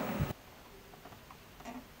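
Orchestral music cuts off abruptly, leaving a quiet room with a few faint clicks and taps as a vinyl record is handled on a homemade turntable.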